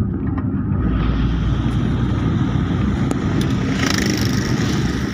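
A vehicle driving along a road: steady low engine and tyre rumble, with a hiss that swells about four seconds in as oncoming motorcycles approach.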